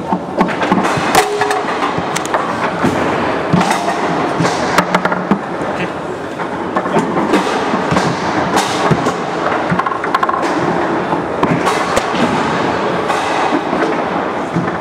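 Roberto Sport foosball table in play: sharp irregular knocks and clacks of the ball striking the plastic men and the table walls, and of the rods banging in their bumpers, over a steady background din.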